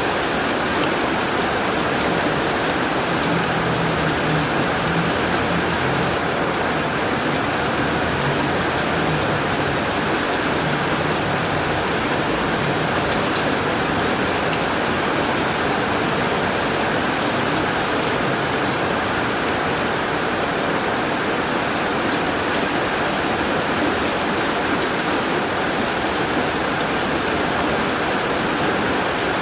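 Heavy rain falling steadily on a tin roof: a dense, even patter of drops.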